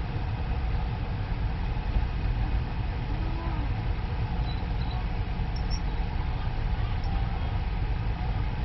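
Steady low rumble of a car's engine and road-vehicle noise, heard from inside the car's cabin.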